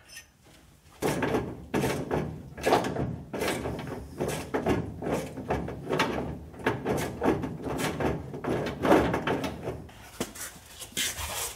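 Irregular clunks, scrapes and rattles of a metal fuel-tank strap being worked into place under a 1964 Ford Thunderbird, starting about a second in.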